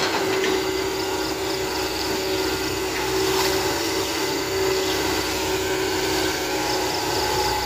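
Hitachi Zaxis 110MF hydraulic excavator running steadily while its bucket digs mud out of a ditch, a constant machine hum with a steady tone over it.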